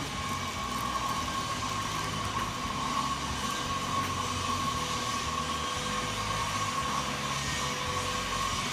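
Steady mechanical drone with a constant whine held at one pitch and a shifting low rumble underneath.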